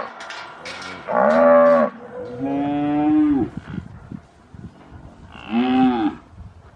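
Santa Gertrudis cattle mooing three times: two calls close together about a second in, then a shorter one near the end, each rising and falling in pitch.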